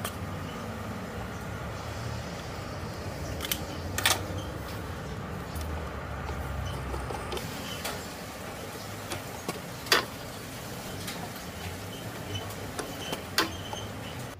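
A mini lathe worked by hand to scribe division lines on a brass part: a handful of short, sharp metallic clicks, the loudest about four, ten and thirteen seconds in, over a steady low hum.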